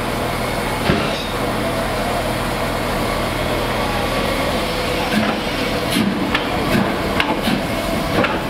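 LNER B1 4-6-0 steam locomotive rolling slowly past at close range, with a steady hiss of steam. Sharp metallic knocks come about a second in, and a run of clanks follows in the second half.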